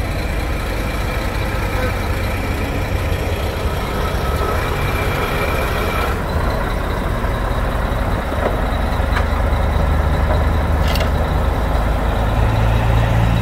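Mack Superliner's diesel engine running as the truck backs slowly up onto a lowboy trailer, getting louder toward the end.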